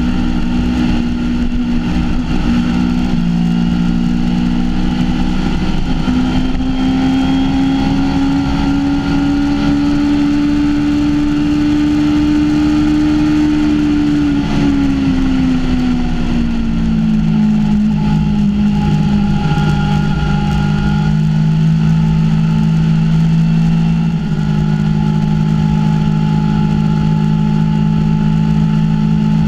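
BMW S1000RR's inline-four engine running hard at highway speed, its note climbing slowly to about the middle, then dropping over a couple of seconds as the throttle eases and holding steady again. Wind rush runs under the engine throughout.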